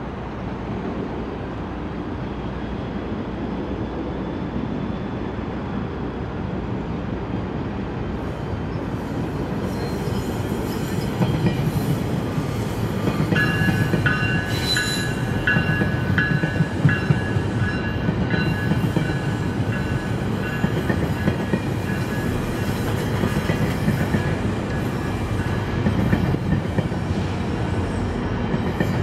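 GO Transit commuter train passing, its wheels rumbling and clicking over the rails and growing louder. From about halfway in, a high wheel squeal rings over the rumble.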